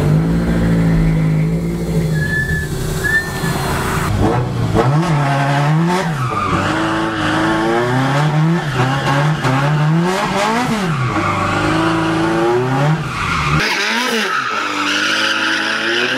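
Built Scion FR-S race car's engine revving up and down over and over as the car drifts in circles, its tires squealing and sliding, with the tire screech loudest in the last few seconds.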